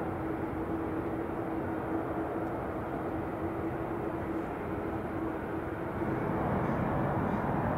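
Steady engine noise with a held low hum, then about six seconds in, louder jet noise from an Air China Boeing 777 on final approach to land.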